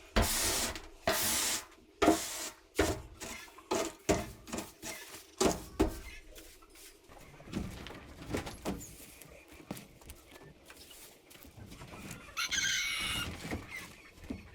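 A series of sharp knocks and rustles over the first half, then quieter; near the end a short warbling bird call.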